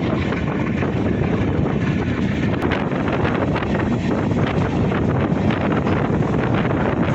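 Steady rush of wind on the microphone over the running noise of a moving passenger train, with a few faint ticks.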